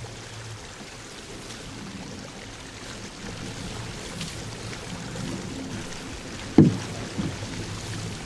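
Steady low rumble inside a van. A sharp thump about six and a half seconds in is the loudest sound, and a smaller knock follows just after.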